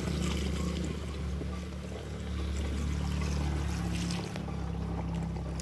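Water poured from a plastic dipper in a steady stream into a knapsack sprayer tank, splashing through the strainer into the water already inside. A steady low hum runs underneath.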